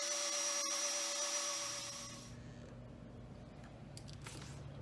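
NutriBullet 900 Series blender motor running with a steady whine as it blends a protein shake. It fades out a little past two seconds in.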